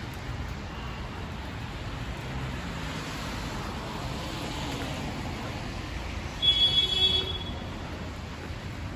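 Steady traffic noise on a wet city street. About six and a half seconds in, a brief high-pitched pulsing tone lasts about a second and is the loudest thing heard.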